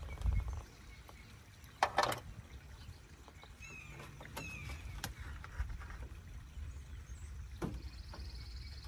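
Handling noises while topping off a brake master cylinder with DOT-3 brake fluid: a few scattered knocks and clicks from the bottle and reservoir, the loudest about two seconds in.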